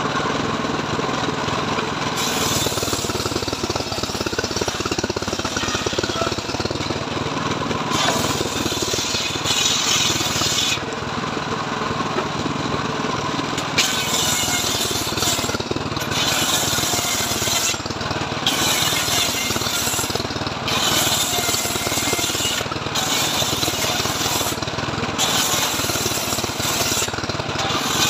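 Homemade engine-driven circular saw bench running steadily while its blade rips mahogany into planks. The hiss of the cut comes and goes every few seconds as pieces are fed through.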